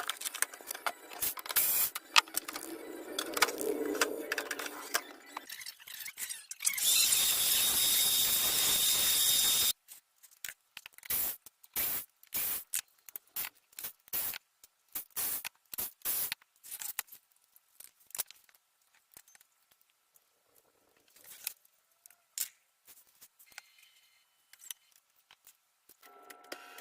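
HP LaserJet MFP M443nda printer's mechanism making its grinding noise, linked to its pale, faint printing. It runs about three seconds of steady, harsh grinding with a thin high whine, between stretches of scraping and a long string of sharp clicks and rattles.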